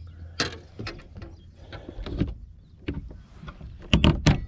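Scattered knocks and thumps on a boat's deck, ending in a cluster of loud, sharp knocks about four seconds in as a deck storage hatch is unlatched and lifted.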